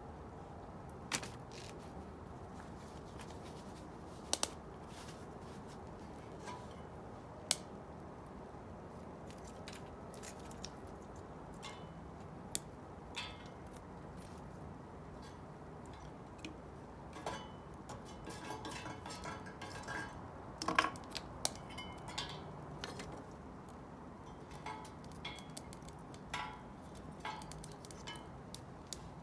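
Metal pan and cooking utensils clinking and knocking on a wood-burning camp stove, as scattered sharp clicks over a steady low background noise. The clinks come thickest about two-thirds of the way through.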